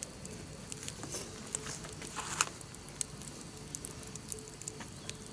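Wood fire crackling, with irregular sharp snaps and pops; the loudest snap comes about two and a half seconds in.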